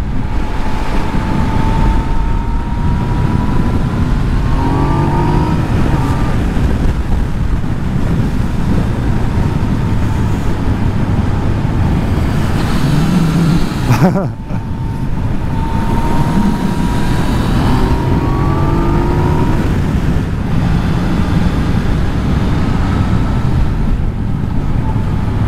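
Yamaha MT-09 three-cylinder motorcycle engine running at speed, its note climbing slowly as it pulls, with two shifts up, about five seconds in and again about eighteen seconds in, over steady wind and road noise.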